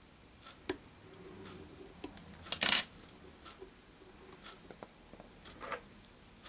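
Light clicks and clinks of small metal fly-tying tools, the loudest a sharp ringing clink about two and a half seconds in.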